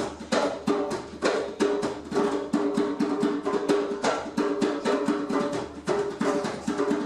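Live hand percussion, drums and other struck instruments, playing a steady, quick, even groove of many strikes a second. It is the rhythm the performer says DJs have claimed as house music.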